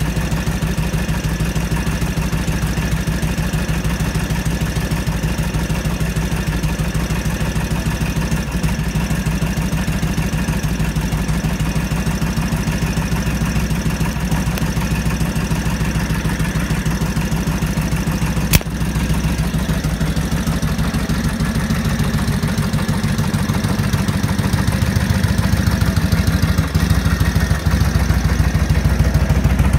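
1946 Harley-Davidson WL's 45 cubic inch flathead V-twin idling with a steady, even pulse. One sharp click comes about two-thirds of the way through.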